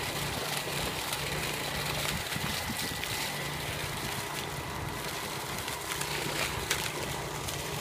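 Truck-mounted water pump unit running steadily with a constant low hum, mixed with water gushing from its discharge hose.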